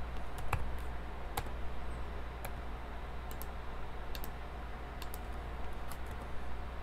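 Computer mouse clicks and keyboard keystrokes, a dozen or so sharp irregular clicks, over a steady low electrical hum.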